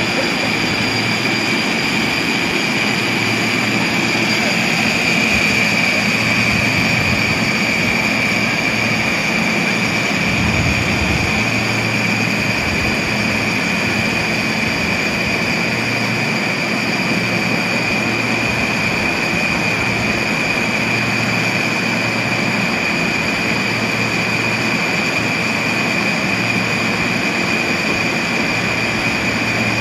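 Steady whirring rush with a constant high whine, from the Great Orme Tramway's haul cable running over the pulleys between the rails while the cable-hauled tram is being drawn up the track.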